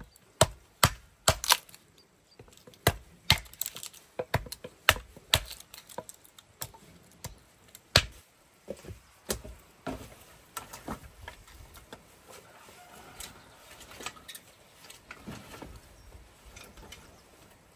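Hatchet splitting kindling on a wooden chopping block: a quick series of sharp chops, about two a second, for the first eight seconds or so. After that come softer, irregular knocks and clatter of split wood and logs being handled.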